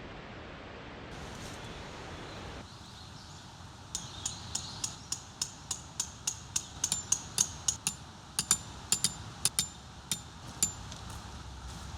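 A hammer driving a metal tent peg: about twenty quick, even blows at about three a second, each with a bright metallic ring.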